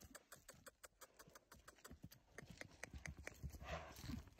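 Hoofbeats of a grey Arabian horse cantering on grass on a lunge line: soft, regular thuds, faint at first and growing louder over the second half.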